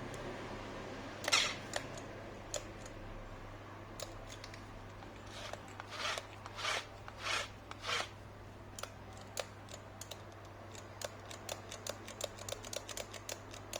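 Clicks and short scraping sounds of hands handling and working on an electric drill, with a run of quick small clicks near the end. The drill's motor does not run: it is still dead.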